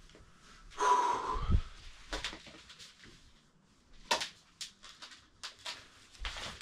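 A loud breathy rush about a second in, ending in a soft low thud, followed by scattered rustles and light knocks of a person shifting on a bed and moving about a small bedroom.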